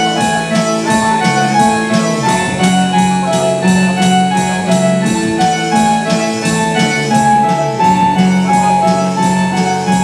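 Live synth-pop band playing an instrumental passage: synthesizer melody over electric bass and a steady drum-machine beat.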